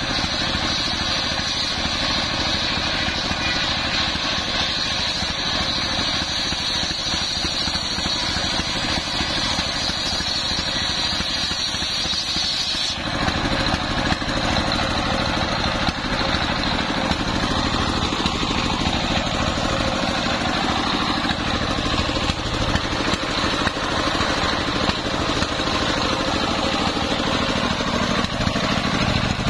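A single-cylinder diesel engine runs steadily, belt-driving a large circular saw bench as coconut-palm timber is fed through the blade. The tone changes abruptly about halfway through.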